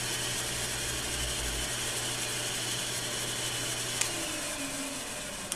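Heat gun blowing a steady rush of hot air onto a cast-plastic part spinning in a small lathe, with the motor hum under it. About four seconds in there is a click, the hum stops, and a falling whine follows as a motor winds down.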